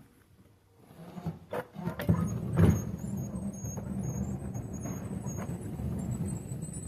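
Sliding barn-style garage door being shimmied and rolled shut on its track: a few knocks, the loudest about two and a half seconds in, then a steady low rumble with a thin high squeal as it rolls.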